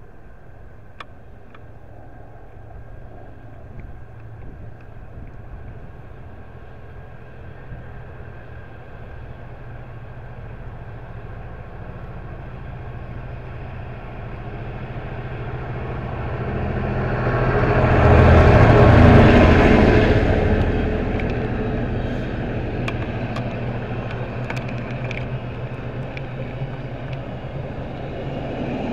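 Diesel locomotive approaching and passing through the station, its engine a low steady drone that builds slowly to a loud peak about two-thirds of the way in, then fades as it goes by, with a few light wheel clicks near the end.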